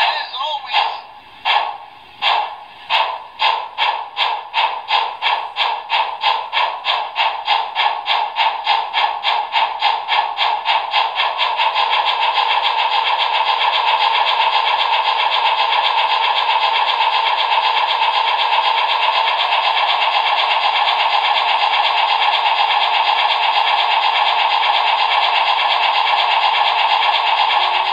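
Sound decoder of a Trix Union Pacific Challenger model steam locomotive playing steam exhaust chuffs through its small speaker as the throttle is opened. The chuffs start as separate beats about one and a half a second, speed up steadily and, about twelve seconds in, run together into a steady fast rush.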